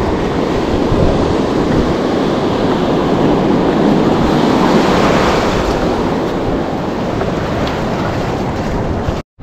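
Surf washing up a sandy beach, with wind buffeting the microphone. The wash swells about halfway through. The sound cuts out abruptly just before the end.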